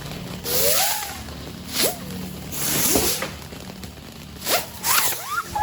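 Non-exploding fireworks going off in a series of about six sharp hissing whooshes, some short and some lasting around half a second, several with a brief rising whistle. There is no bang.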